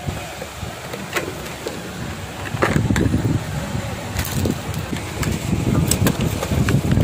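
Handling noise as a half-face motorcycle helmet is turned over in the hands, with a few short, light clicks and knocks from its shell and fittings over a steady low rumble.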